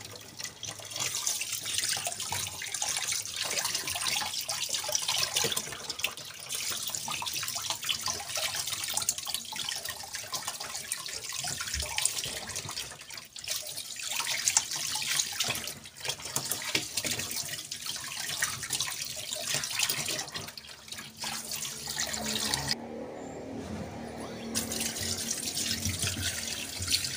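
Kitchen tap running and splashing into a stainless-steel sink and a plastic tub while raw chicken pieces are rubbed and rinsed by hand. Near the end the splashing breaks off for about two seconds, then goes on.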